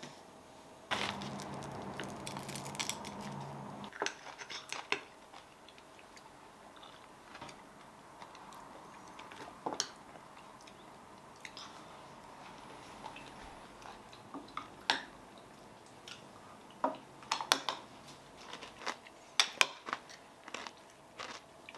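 Metal spoons clinking and scraping against glass mugs while acai bowls are eaten, with soft chewing. There are irregular taps throughout, more of them near the end, and a louder stretch of noise with a low hum for about three seconds near the start.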